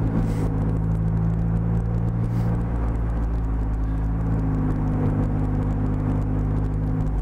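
Maserati MC20 Cielo's 3-litre twin-turbo V6 running steadily at low revs while the car is driven slowly.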